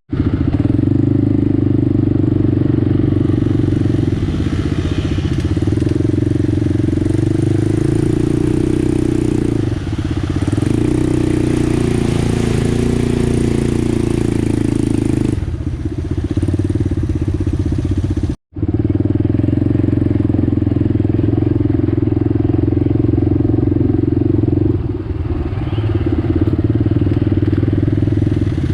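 ATV engine running steadily under way on a trail ride, its drone rising and easing slightly. It breaks off to silence for an instant about two-thirds of the way through.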